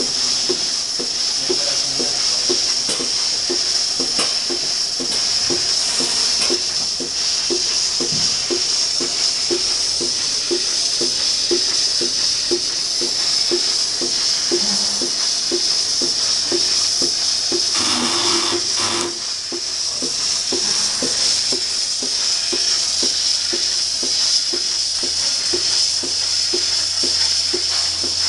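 Lely Astronaut 4 milking robot running: a steady vacuum hiss with a regular pulsing beat a couple of times a second. A brief louder noise cuts in a little past halfway.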